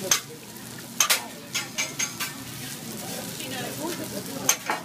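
Food sizzling on a hot teppanyaki steel griddle, with a series of sharp metal clacks from the chef's spatula striking the plate: a few close together in the first two seconds and one more near the end.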